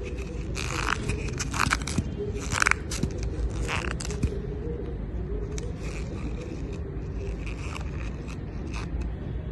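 Short scraping strokes on a hard surface, about one a second for the first four seconds, then fainter and sparser, over a steady low rumble.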